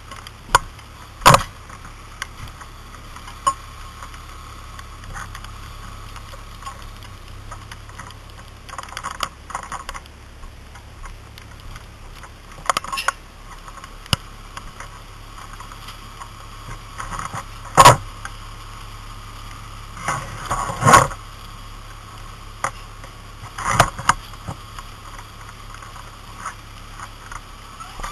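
Sharp knocks and pops at irregular intervals, a few seconds apart, over a steady low hum; the loudest come about 18 and 21 seconds in.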